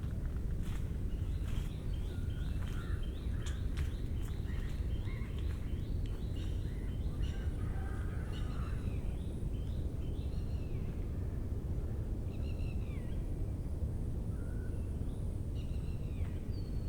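Birds calling in the forest: a quick run of repeated down-slurred notes, about two or three a second, for the first six seconds or so, then scattered single calls, all over a steady low rumble.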